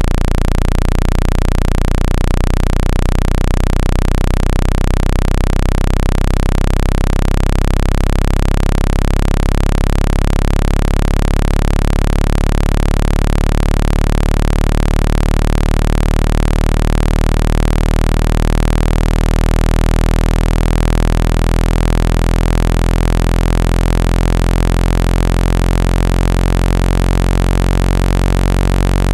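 Synthetic low-pitched speaker-cleaning tone, a deep hum with a dense stack of overtones, meant to vibrate a phone speaker and shake dust out of its grille. It pulses for the first few seconds, then settles into a steady drone at constant loudness.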